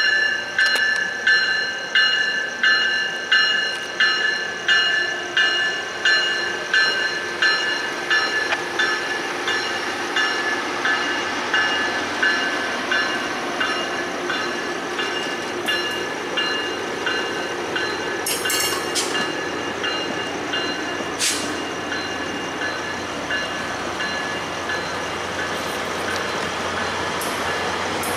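Tri-Rail bilevel passenger train passing close by. A bell rings in a steady rhythm of a little under two strikes a second and fades out about a third of the way in. It leaves the steady rumble and clatter of the double-deck coaches rolling past, with a couple of brief high screeches past the middle.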